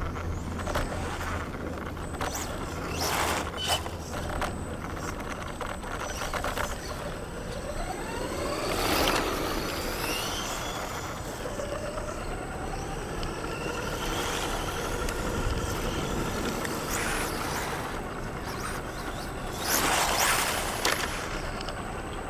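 Radio-controlled model car driving, its motor whine gliding up and down with the throttle over steady tyre and ground noise. There are louder rough bursts about three, nine and twenty seconds in.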